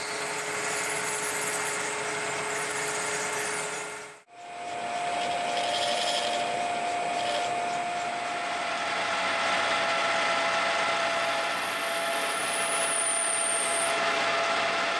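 Colchester 1800 manual lathe running steadily while cutting Delrin, with a steady whine. The sound drops out abruptly about four seconds in and comes back with the whine higher-pitched, as the lathe drives a large twist drill into the part.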